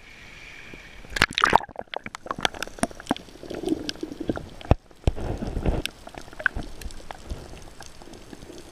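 Water sloshing and gurgling around a diver's camera as it goes below the surface, heard muffled underwater, with many short sharp clicks and crackles during the first half.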